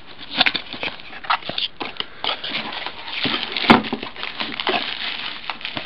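Plastic bags and bubble wrap crinkling and rustling as packed accessories are pulled from a cardboard box, with one sharp knock a little past halfway.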